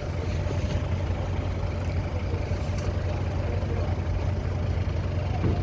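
A motor vehicle engine idling: a steady low rumble.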